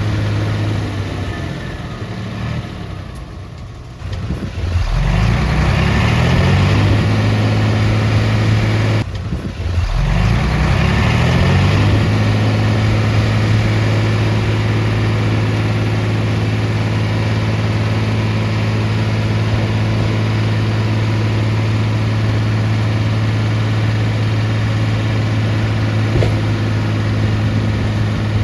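Heavy diesel engine of earthmoving equipment running under load. Twice, about three seconds in and again about nine seconds in, the engine note drops away and then climbs back up to a steady run.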